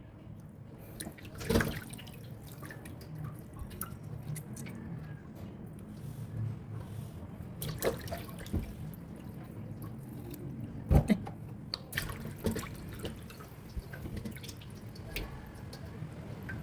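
Kitchen sounds of water dripping, with a few sharp knocks, the loudest about one and a half seconds in and again near eight and eleven seconds.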